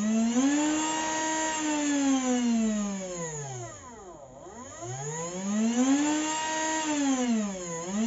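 Small brushed DC screwdriver motor running under a PWM 1803B speed controller. Its whine rises and falls in pitch as the speed is turned up and down, slowing almost to a stop about four seconds in, then speeding up again and dipping once more near the end.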